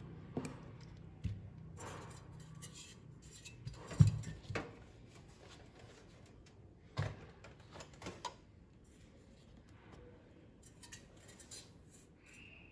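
Scattered light clicks and knocks of small hard computer parts being handled while a CPU cooling fan is fitted, the sharpest knock about four seconds in. A low hum fades out in the first couple of seconds.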